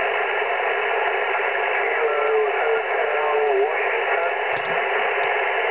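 Amateur radio transceiver receiving single-sideband on 21.252 MHz in the 15-metre band: a steady static hiss from the speaker, with a weak, garbled voice in the noise for a second or two in the middle.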